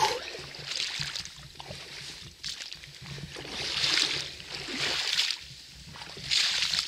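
Legs wading through calf-deep flooded marsh water: a swishing slosh with each step, several steps in a row with uneven gaps.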